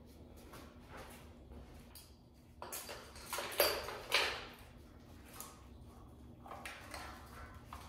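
Engine wiring harness being plugged in by hand: short clicks and rattles of plastic connectors and the wire loom, a burst of them a few seconds in and a few more near the end, over a faint steady hum.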